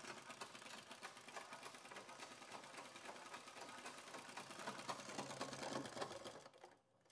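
Treadle-driven flat-bed sewing machine stitching a leather sandal strap: faint, rapid ticking of the needle mechanism that stops shortly before the end.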